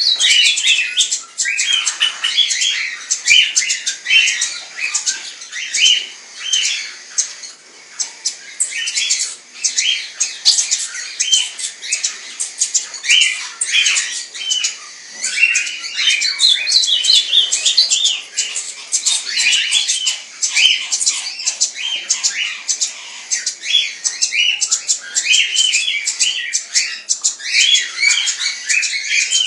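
Many caged small parrots calling at once, chattering and squawking in a dense, unbroken run of short, high-pitched calls.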